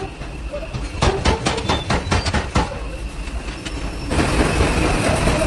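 Rapid hammer blows on hot iron, about six a second for a second and a half. About four seconds in, a steady loud machine noise starts.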